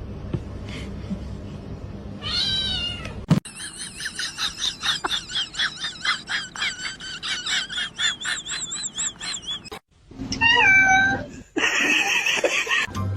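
Cats meowing: a meow about two seconds in, then a long run of quick, short repeated calls, several a second, and after a brief break near ten seconds more meows falling in pitch.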